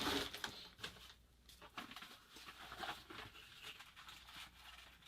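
Faint rustling and light clicks of small objects being handled while a battery cell is fetched and picked up.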